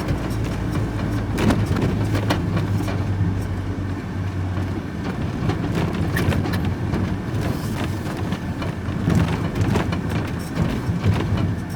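Engine and road noise inside a moving vehicle's cab: a steady low drone, strongest in the first five seconds or so, with scattered short knocks and rattles.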